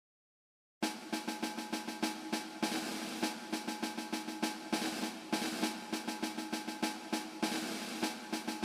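Background music: after a moment of silence, a track starts with a fast snare-drum beat over sustained tones.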